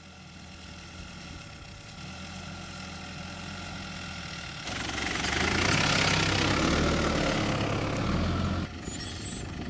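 Mitsubishi Pajero SUV driving toward and then close past, its engine growing steadily louder as it approaches. About five seconds in, the hiss of tyres on gravel and dirt joins in, loudest as the wheel rolls by, then drops sharply near the end.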